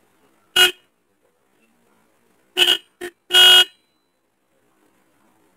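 Disc-type electric horn giving short test honks: one brief blast about half a second in, then three in quick succession around the middle, the last a little longer. The horn sounds, so the repaired horn is working.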